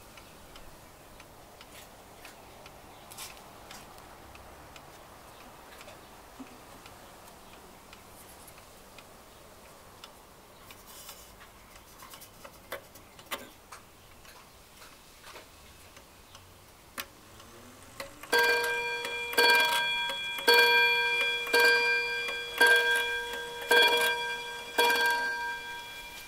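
Montgomery Ward 30-day key-wound pendulum schoolhouse wall clock ticking softly, then striking the hour of seven o'clock: seven ringing strokes about a second apart, each ringing on with a clear tone and fading before the next.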